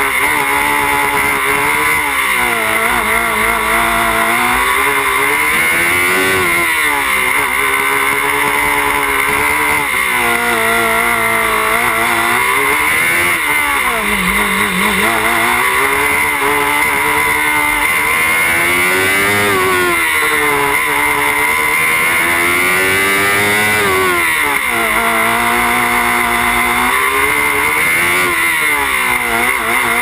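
Small open-wheel single-seater race car's engine heard from onboard, loud throughout, its pitch climbing under acceleration and dropping back as the throttle is lifted for corners, over and over.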